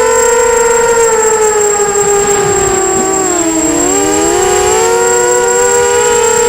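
Electric motors of a 250-size FPV racing quadcopter whining in several close pitches. The pitch sinks about halfway through and climbs back as the throttle is eased and opened again, over a steady high whistle.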